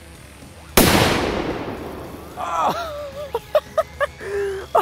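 A Spanish trueno firecracker goes off about a second in: one big boom, a sharp, very loud bang whose echo dies away over the next second or so.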